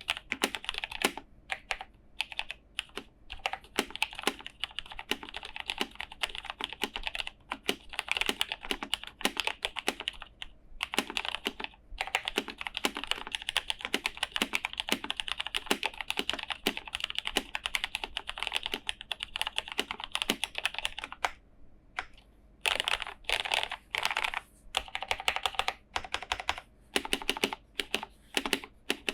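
Typing on a vintage Cherry G81-1000 keyboard with lubed and filmed Cherry MX Black linear switches and tuned screw-in stabilisers. It is a quick, continuous run of soft key clacks, with short pauses now and then.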